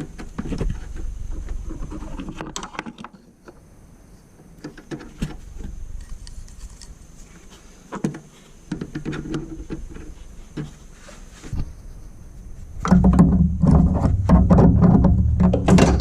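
Rubber coolant hose being forced by hand onto the nipple of a plastic coolant overflow reservoir: intermittent clicks, creaks and rubbing, growing louder and more continuous about three seconds before the end.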